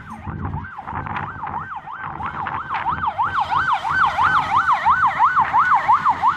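Emergency vehicle siren in a fast yelp, its pitch sweeping up and down about three times a second and growing louder as it approaches.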